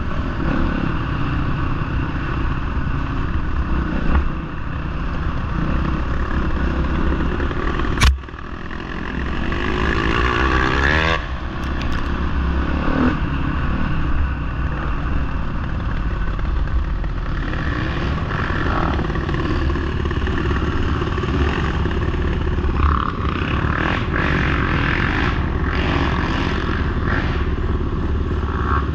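Off-road dirt bike engines running on a rough forest trail, heard from the rider's own bike, with clattering over the ground. A sharp knock comes about eight seconds in, after which the engine revs up again.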